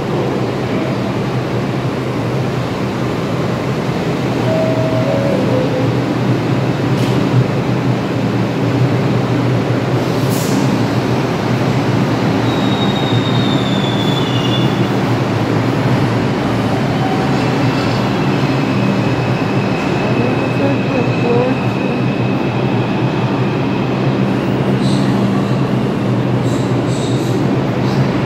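New York City subway train running through the station: a steady loud rumble of wheels on the rails with a low hum, and thin wheel squeals about a dozen seconds in and again later on.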